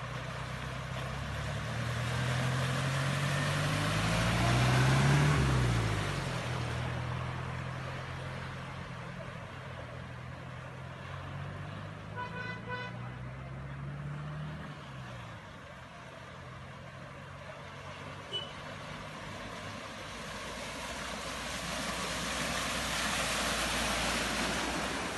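Engines of motor vehicles passing close by one after another, the engine pitch dropping as each goes past. One vehicle sounds a short horn toot about halfway through.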